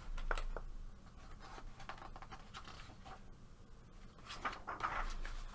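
Faint handling of a paper coloring book: a few light taps and brushes of a hand on the page, then a rustle of paper near the end as the page is taken by its corner to be turned.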